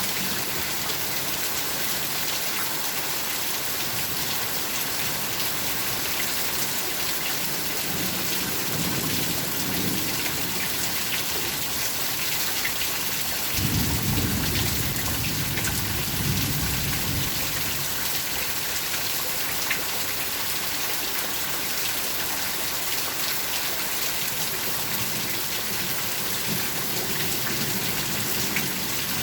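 Steady rain falling, an even hiss throughout, with low rumbles of thunder rolling in several times; the strongest comes about halfway through and lasts a few seconds.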